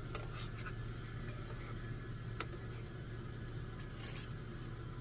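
A steady low electrical hum with a few faint clicks and a brief rustle about four seconds in.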